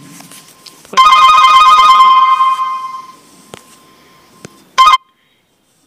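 Kenxinda 6A Android phone ringing at full volume, set off remotely by Google Find My Device. A loud, steady ringtone tone starts about a second in and fades after a couple of seconds. A short final burst follows near the end, and then the sound cuts off suddenly.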